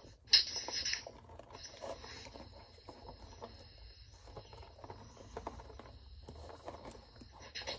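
Small plastic gear and motor parts of a Big Mouth Billy Bass being handled and fitted: a brief scrape about half a second in, then scattered light clicks and rustles.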